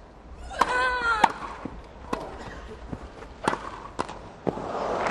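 Tennis rally: the sharp pocks of racquets striking the ball, about six hits a little under a second apart. One hit about a second in comes with a player's shriek that rises and falls in pitch. Crowd applause breaks out near the end, as the point ends.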